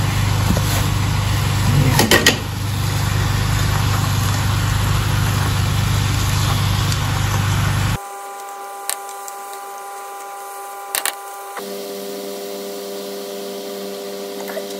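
Steady low hum and hiss of the kitchen while fried tofu and chicken pieces are tipped from a bowl into a wok, with a clatter of food and bowl about two seconds in. At about eight seconds this cuts to soft background music of held chords that change to new notes near the end.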